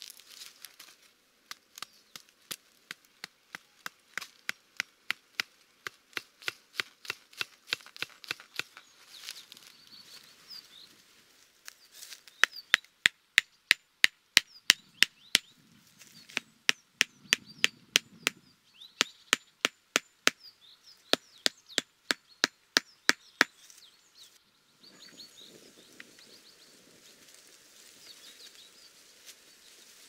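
A hatchet head pounding wooden tent stakes into the ground, in three runs of quick, even blows, about two to three a second, the middle run the loudest.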